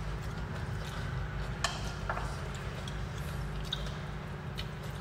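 Eating sounds: chewing and mouth noises with a few soft clicks of a spoon and dishes, over a steady low hum.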